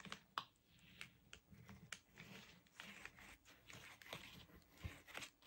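Near silence, with faint scattered small ticks and soft paper rustles from paper and a glue bottle being handled on a tabletop.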